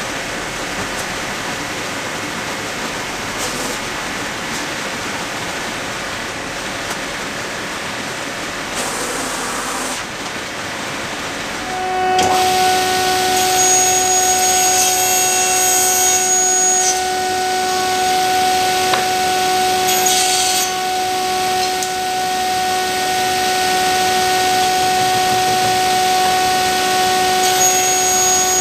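A wide belt sander running with a steady rushing noise, then about twelve seconds in, louder, a sliding table saw running with a steady whine as an elm and resin board is fed through its blade.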